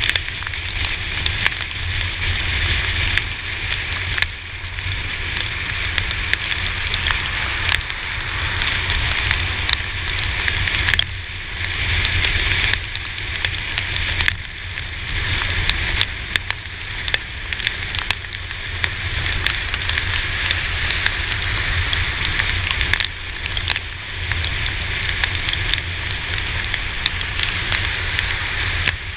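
Rain and road spray crackling on the camera, over a steady low rumble of wind and tyres from a scooter riding on a wet road.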